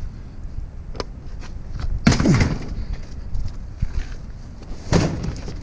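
Knocks and thumps of a heavy discarded item being lifted and loaded by hand, with a loud clatter about two seconds in and another sharp knock near the end.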